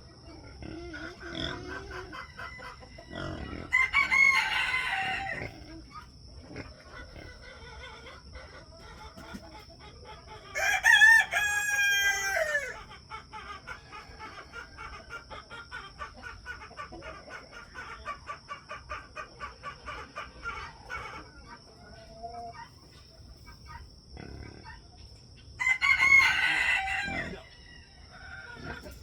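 Roosters crowing three times, loud and drawn out, with hens clucking rapidly in between.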